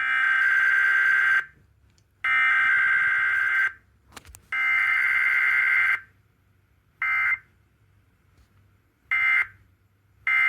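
Emergency Alert System SAME digital header: three loud warbling data bursts of about a second and a half each, a second apart. Shorter bursts of the same two-tone data follow near the end, matching the end-of-message code.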